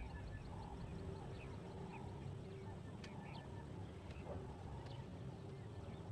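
Faint outdoor ambience of birds chirping and calling, short high chirps repeated many times over a low steady rumble.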